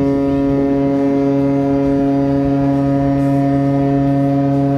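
Mein Schiff 1 cruise ship's horn sounding one long, deep, steady blast.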